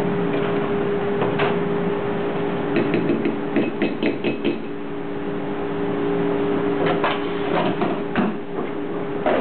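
A steady low hum, with a quick run of about five light taps or knocks about three seconds in and a few more near the end.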